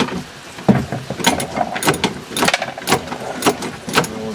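A run of sharp metallic clicks and knocks, roughly two a second, from hand tools working loose the bolts and brackets inside a stripped-out Jeep Cherokee.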